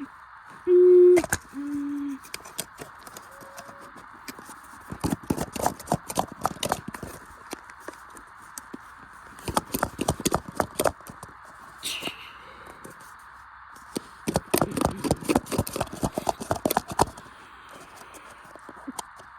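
Two short electronic tones, the second lower, then three bursts of rapid clattering and knocking from a washing machine being smashed apart.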